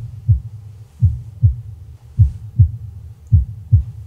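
Heartbeat sound effect: four low lub-dub double thumps, about one a second, over a steady low hum, a suspense cue before a reveal.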